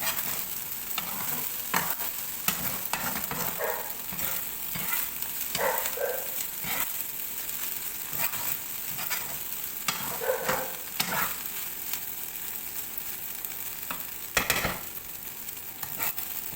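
Fried rice sizzling in a hot pan as it is stirred, with irregular scraping and knocking strokes of the stirring utensil and one louder knock near the end.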